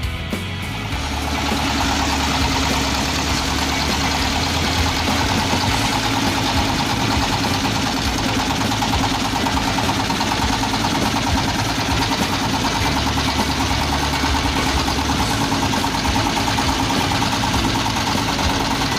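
Boat engine running steadily at an even pace.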